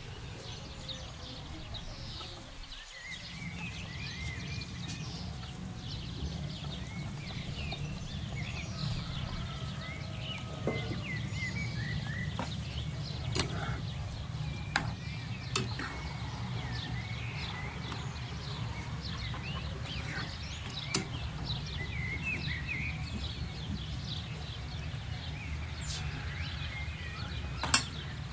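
Birds chirping in the background over a steady low hum, with a few sharp clicks here and there.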